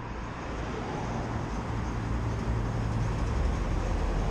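City street traffic: a steady low rumble of passing vehicles, growing slightly louder.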